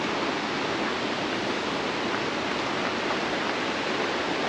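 Steady rush of a waterfall, an even roar of falling water with no change.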